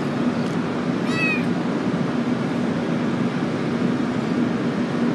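A ginger kitten meows once, briefly, about a second in, over a steady low hum of background noise.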